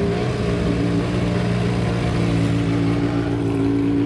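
Historic racing car engine running at steady, fairly high revs, its pitch dipping slightly just after the start and then holding.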